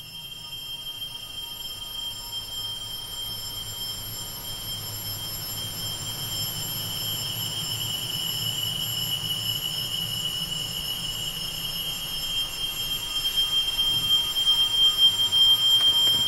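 A steady high-pitched electronic tone, like a whine or ringing, over a low rumbling hum. It slowly grows louder and swells further near the end.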